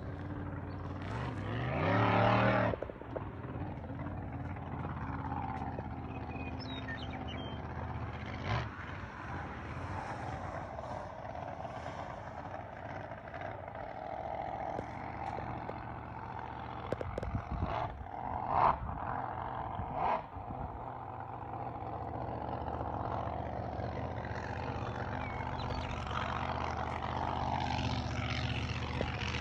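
A steady motor drone, with a vehicle speeding up and rising in pitch about two seconds in. A few short knocks and scrapes come later.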